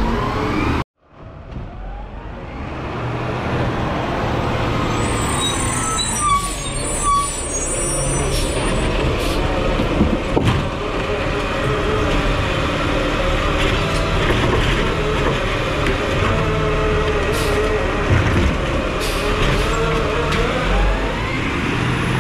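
Peterbilt garbage truck with a New Way Roto Pac automated side-loader running, the engine drone joined by hydraulic whine as the arm grabs, lifts and tips a wheeled cart. Knocks and clanks of the cart and arm come at several points. There is a brief drop-out about a second in.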